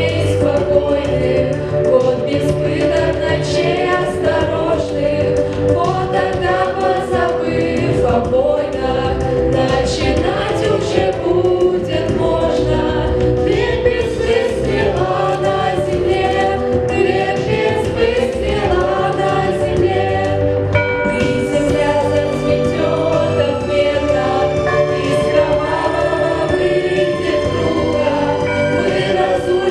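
A class choir of school students singing a song together over an instrumental accompaniment with a steady bass line.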